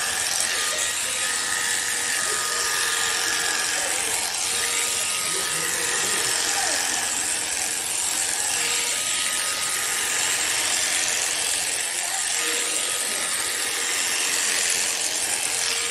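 Electric shearing handpiece running steadily, its cutter and comb cutting through thick llama fleece: an unbroken hissing buzz with a faint steady whine underneath.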